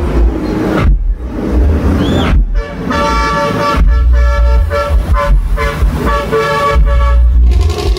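A horn honking in a run of repeated blasts, broken and restarted many times over about five seconds, over heavy bass from a sound system's speaker boxes.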